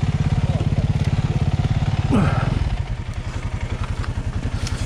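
Motorcycle engine idling with a steady, even beat, dropping a little in level just under three seconds in; a brief voice sound is heard a little after two seconds.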